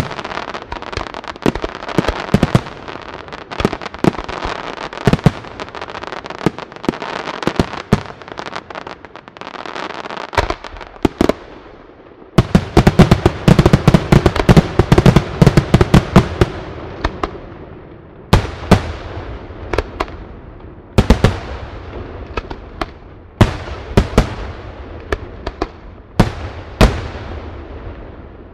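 Aerial firework shells bursting: a steady run of crackling and pops, then a dense volley of loud bangs a little before halfway, followed by single booms every two to three seconds, each trailing off.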